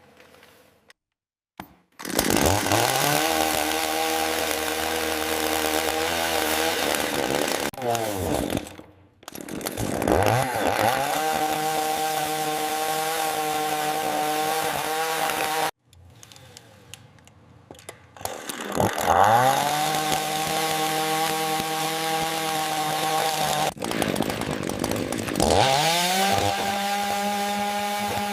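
AI-generated chainsaw sound. The saw revs up and runs steadily four times in a row, rising in pitch at the start of each run. One run winds down and another cuts off abruptly.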